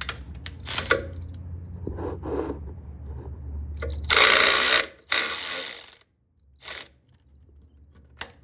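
A ratchet working the serpentine belt tensioner bolt loose, with scattered metal tool clicks and then two loud bursts of ratcheting about four and five seconds in. A faint low hum runs under it for the first half.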